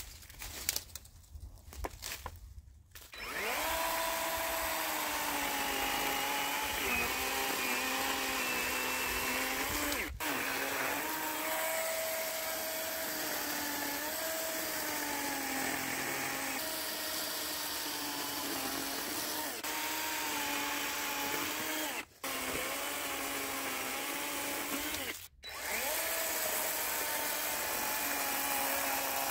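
A motorized power tool running steadily, starting about three seconds in after some rustling. Its pitch sags and recovers as it works, and it breaks off sharply twice for a moment in the second half.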